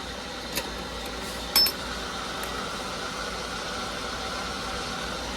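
Steady hum of store air conditioning, with a faint click about half a second in and a sharp metallic clink with a short ring about a second and a half in, from a coin-operated capsule vending machine being worked.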